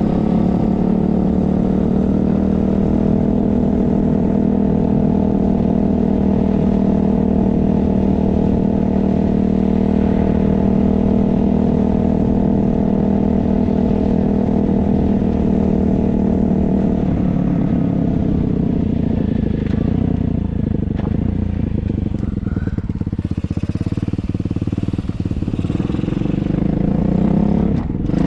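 Engine of a Hawk 125cc dirt bike running steadily, then changing pitch and becoming less even about two-thirds of the way through, with the pitch rising again near the end. On its stock carburettor the engine feels boggy to the rider.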